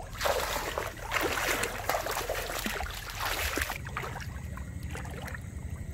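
Water splashing and sloshing in shallow water for about three and a half seconds, then dying down to a few faint drips and trickles.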